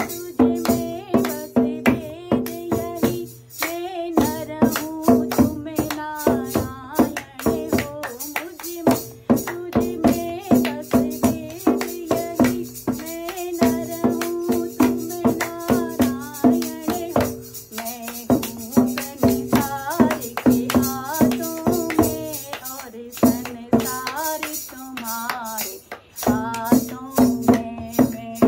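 Woman singing a Hindi Krishna bhajan to her own dholak, the two-headed rope-tensioned hand drum, with steady hand-clapping keeping the beat.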